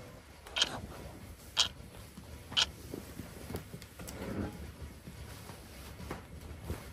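Three sharp taps about a second apart, then a softer, duller knock about four seconds in.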